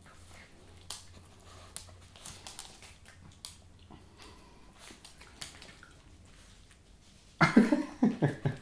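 A small dog chewing a dried chicken-fillet dog treat, a scatter of small clicks and crunches, with a sudden louder burst near the end.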